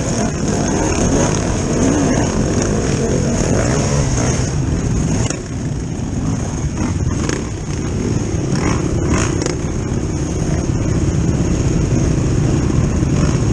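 Enduro dirt bike engine revving up and down as it climbs a rocky trail for the first five seconds or so. It then runs steadily at low revs amid other dirt bikes queued on the hill.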